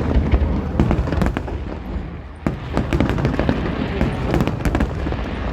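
Fireworks display: a rapid string of bangs and crackles over a low rumble, with a sudden loud bang about two and a half seconds in followed by dense crackling.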